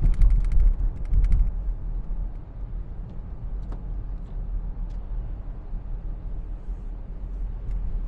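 Steady low rumble of a car driving on a wet road, heard from inside the cabin. A quick cluster of clicks and rattles comes in the first second or so, and a few faint ticks follow later.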